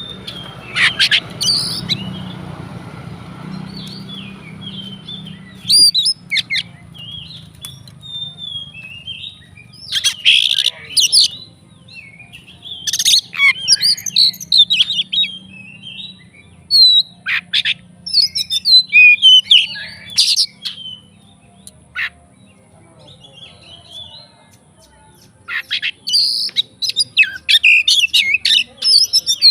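Oriental magpie-robin (kacer) singing in loud bursts of varied whistles and rapid chattering phrases with short pauses between them, a song full of mimicked calls of other birds. A low hum fades away in the first few seconds.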